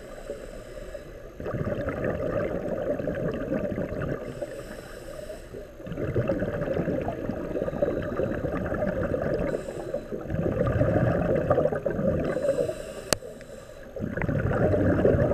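Scuba regulator breathing heard underwater: exhaled bubbles gurgle in stretches of two to four seconds, alternating with quieter inhales. A single sharp click comes near the end.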